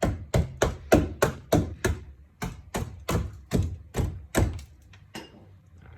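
Rapid repeated hammer blows, about three or four a second, each with a short ring, stopping about five seconds in.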